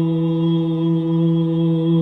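Om chanted as one long, steady hum at a low male pitch, held without a break.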